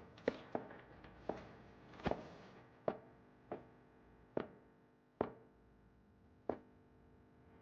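Footsteps of hard-soled shoes on a hard floor, sharp clicks about one every three quarters of a second, nine in all, slowing slightly before stopping about six and a half seconds in.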